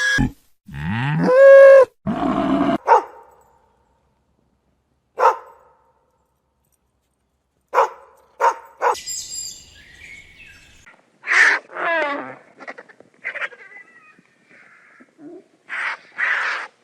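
A series of separate animal calls with silent gaps between them. The loudest is a long call rising in pitch about a second in, followed by shorter, sharper calls and a falling call in the second half.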